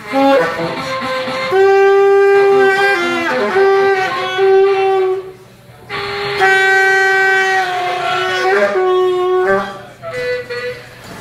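Saxophone played live, holding long notes of one to three seconds that bend down in pitch as they end, with a break about five seconds in.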